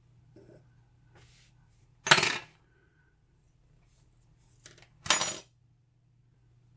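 Two short metallic clatters about three seconds apart, each with a brief bright ring: small lock parts such as pins dropped onto a hard surface.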